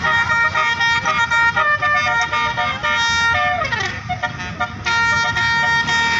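Bus 'telolet' musical horn playing a multi-note tune, its notes switching several times a second over a steadily held horn tone, with a falling glide a little before four seconds in.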